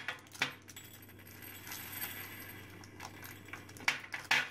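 Tiny hard candy beads poured from a small plastic packet into a ceramic ramekin, clinking and rattling, with a few sharp clicks near the start and again near the end.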